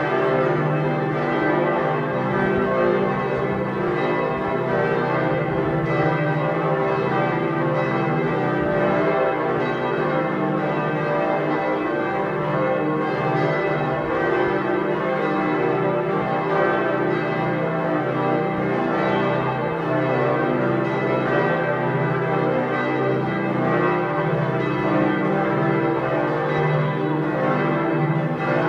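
Church bells of Giotto's Campanile ringing together in a continuous peal, many overlapping bell tones sounding without a pause.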